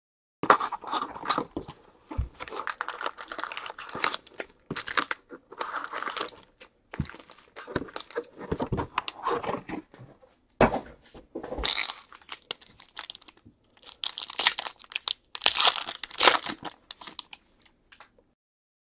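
Gloved hands handling a 2017 Panini Prizm football hobby box and its foil card packs: irregular crinkling, rustling and tearing of wrapper foil and cardboard, with three knocks as things are set down. The loudest, brightest crinkling comes near the end as a foil pack is torn open.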